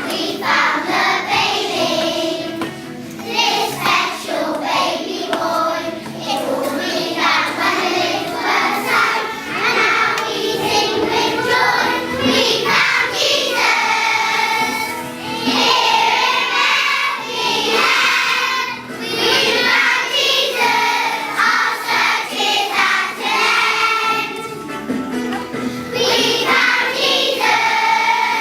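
Music: children's voices singing together, like a choir.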